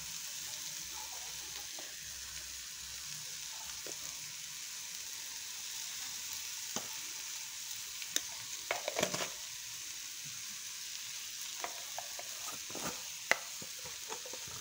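Onion, ginger and green chilli sizzling steadily in an aluminium kadai as they sauté, with a few light clicks of the metal spoon against the pan around the middle and near the end.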